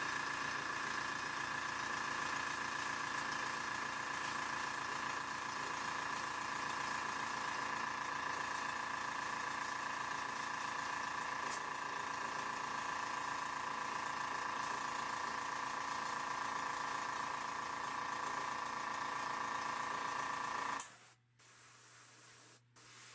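Airbrush spraying acrylic paint at very low pressure: a steady hiss of air and paint over the steady hum of its compressor. Near the end the motor hum stops suddenly, leaving a fainter hiss broken by a few short gaps.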